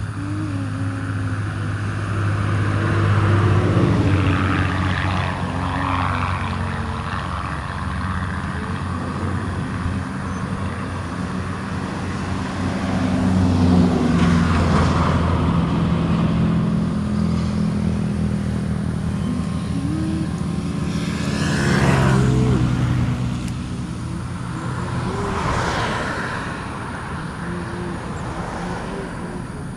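A motorcycle engine idling steadily close by, while road traffic passes several times. One vehicle passes with a falling pitch about three-quarters of the way through.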